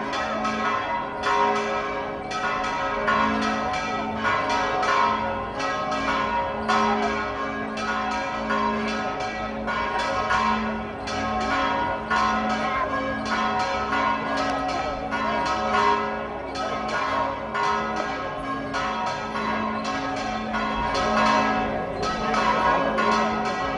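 Church bells ringing a continuous festive peal, strikes following each other quickly and overlapping in a sustained ring.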